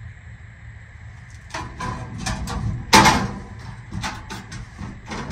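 Knocks and clattering from a Ryobi tool storage unit being handled and slid into place, with one loud bang about three seconds in.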